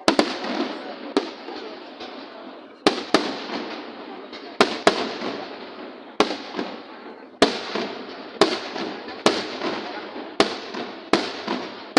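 Fireworks display: a rapid series of about a dozen sharp firework bangs, irregularly spaced roughly a second apart, each trailing off into crackle and rumble.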